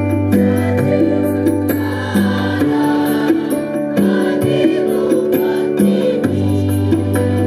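Large mixed student choir singing an Indonesian patriotic song with held, sustained notes over an instrumental accompaniment; the low bass note of the accompaniment drops out for a few seconds in the middle and then returns.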